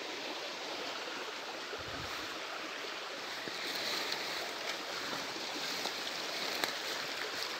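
Steady rushing of running water, like a small forest stream, with light rustling and a few soft brushes of undergrowth as someone walks through ferns, a little busier from about halfway in.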